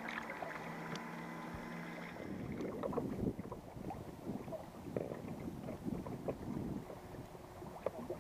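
A steady hum made of several held tones for about two seconds. Then water laps and sloshes right beside a camera held just above the waterline, in irregular splashy surges.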